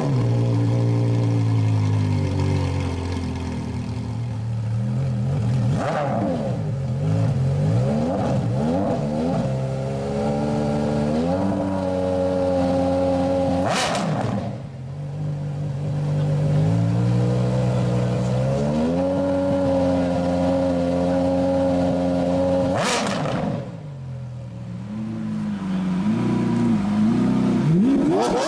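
Straight-piped Porsche Carrera GT's V10 idling after starting, with short throttle blips and twice stepping up to higher revs that are held for a few seconds. Near the end a Lamborghini Aventador SV's V12 takes over, idling with light blips.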